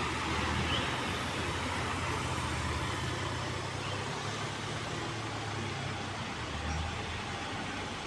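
Diesel bus engine running with a low steady drone, over general traffic noise.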